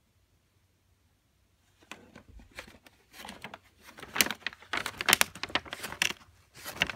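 A tuxedo cat biting and chewing at a white mailer envelope, the envelope crinkling and crackling in irregular bursts that start about two seconds in and grow louder.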